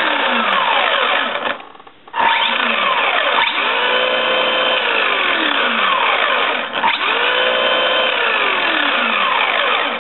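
Electric motor and geared drivetrain of a Radio Shack Golden Arrow RC buggy revved repeatedly with its wheels spinning in the air: a loud whine rising and falling in pitch, cutting out briefly about one and a half seconds in.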